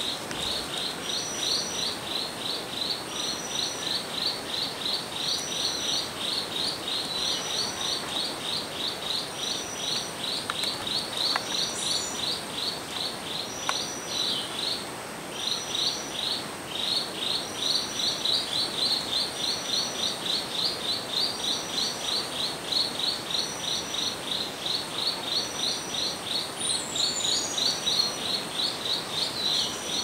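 Rainforest insects calling in chorus: a fast, even pulsing of about four beats a second, over a steady high whine and a short high note repeating about once a second. A brief falling whistle cuts in near the end.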